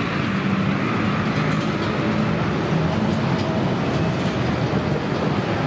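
Steady hubbub of a busy outdoor street-food market: a dense wash of crowd chatter and background noise at an even level.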